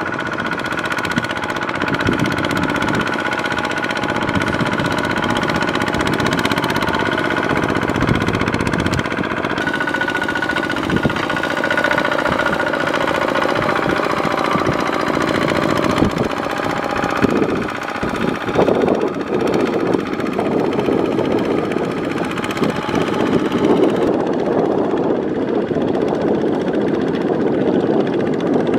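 Single-cylinder diesel engine of a Kubota two-wheel walking tractor running steadily under load, its steel cage wheels churning and splashing through flooded mud.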